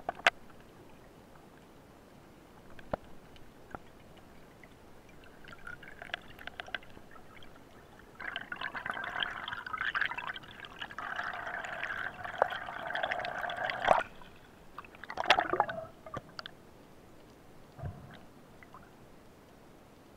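Underwater sound picked up by a diver's camera: water gurgling and bubbling, loudest in a stretch of several seconds in the middle, with a few sharp clicks, one just after the start and another about fourteen seconds in.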